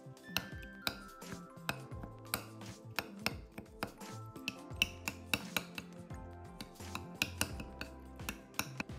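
Metal spoon clinking against a glass, many quick sharp clinks in a row as ingredients are stirred, over background music.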